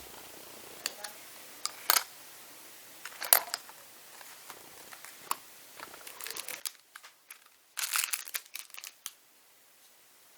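Small objects being handled during a watch battery change: a scatter of sharp clicks and taps, the loudest about three seconds in, then a dense run of crinkly clicks about eight seconds in.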